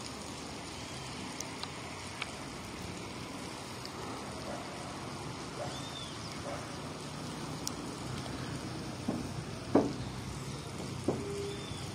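Steady outdoor background noise, an even hiss, with a few faint clicks and short high chirps scattered through it.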